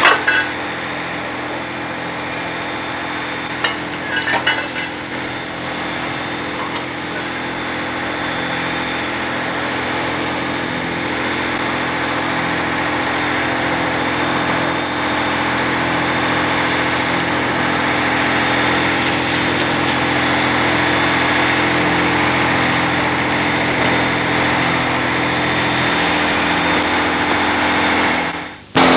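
Fire engine running steadily: a constant engine hum under a steady hiss. There are a few light knocks about four seconds in, and the sound drops out briefly near the end.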